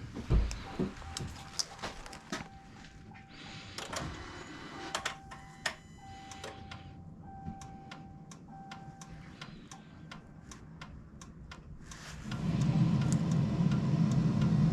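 Scattered clicks and a faint, broken chime tone from the pickup truck. About twelve seconds in, the truck's engine starts and runs at a steady idle.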